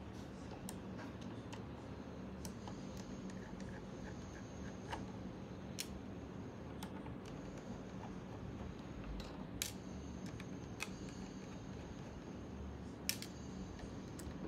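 Small sharp clicks and taps of plastic camera parts and a small screwdriver being handled, about six scattered through, over a steady low hum.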